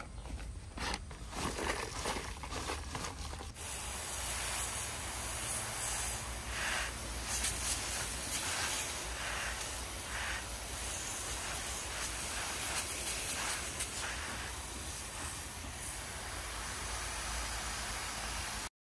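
A few light clicks and rustles, then a steady hiss that starts about three and a half seconds in and stops abruptly just before the end.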